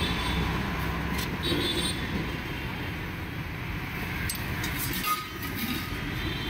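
Steady rumble of passing road traffic, with a few light clicks.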